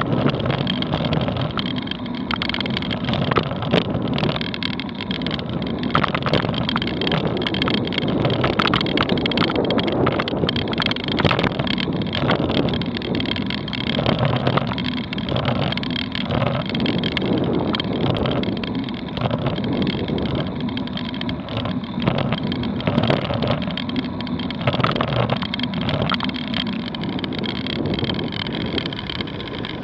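Continuous rumble and rattle of a bicycle rolling slowly over a concrete street, with small knocks throughout.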